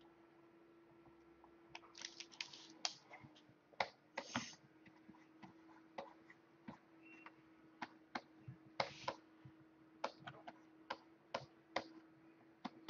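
Scattered clicks and taps of computer keys and a drawing stylus during digital painting, starting about two seconds in, with a few short scratchy strokes among them, over a faint steady hum.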